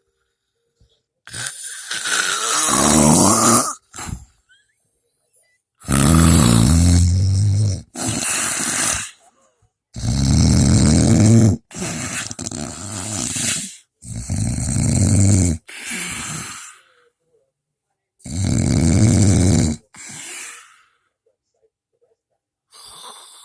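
Loud snoring: a run of long, harsh snoring breaths a few seconds apart, the loudest with a low buzzing rumble, separated by short silences.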